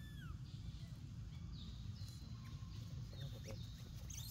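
Faint high-pitched animal calls: a short falling chirp at the start, then several brief high whistles, over a steady low outdoor rumble.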